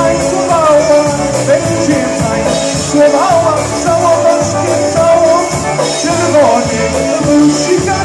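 Live band playing, amplified through PA loudspeakers: squeezebox, electric guitars, keyboard and drums over a steady repeating bass pulse.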